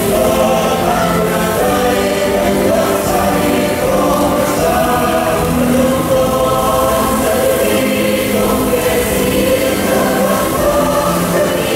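Choral music with long, sustained choir voices, played as the soundtrack of a musical fountain show, with a steady hiss of water spray beneath it.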